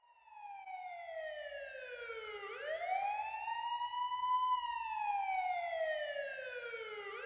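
Police siren on a slow wail. It fades in at the start, and its pitch falls for about two and a half seconds, rises back over the next two, falls again, and starts to climb once more near the end.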